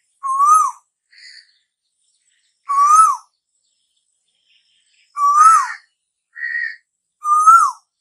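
Asian koel calling: four loud, clear whistled calls about two seconds apart, each rising and then dropping sharply, with two softer, shorter notes between them.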